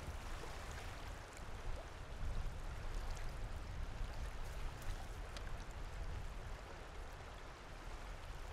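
Faint, steady rush of flowing river water, with a low rumble underneath.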